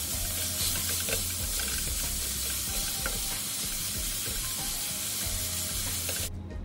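Minced beef sizzling in hot olive oil in a stainless steel frying pan while a wooden spoon stirs and breaks it up. The sizzle cuts off suddenly near the end.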